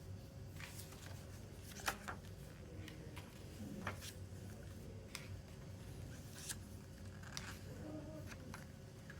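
Hands handling CD album packaging: a few scattered clicks and light rustling of plastic and paper, over a faint steady low hum.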